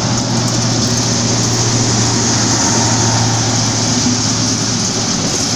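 DB Class 218 diesel locomotive working under load as it hauls a regional express out of the station: a loud, steady engine drone over train noise.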